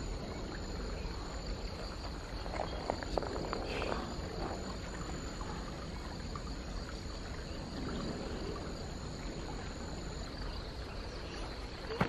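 Wetland ambience by a creek: two steady high-pitched tones, the higher one stopping near the end, over a low even hiss, with a few faint chirps between about two and four seconds in.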